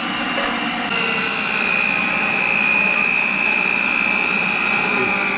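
Electric tilt-head stand mixer running with a steady high motor whine, its beater mixing flour into butter-and-sugar cookie dough in a steel bowl. The whine grows a little louder about a second in.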